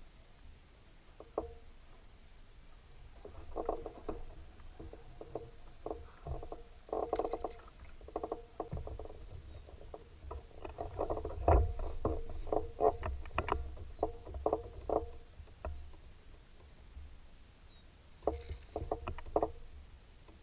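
A kayak being paddled: water splashing and dripping off the paddle, with short knocks against the hull, coming in irregular clusters of quick clicks. A low rumble sits underneath.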